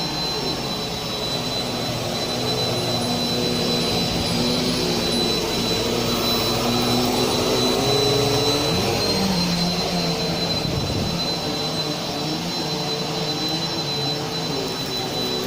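Vacuum cleaner running over new carpet: a loud, steady whir with a thin high whine, its lower hum shifting in pitch about nine seconds in as the load on the motor changes.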